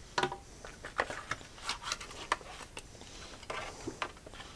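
Handling of cardboard packaging and small plastic parts: a string of irregular light clicks and short rustles as a USB cable is set down on a table and a plug-in power adapter is lifted out of its box.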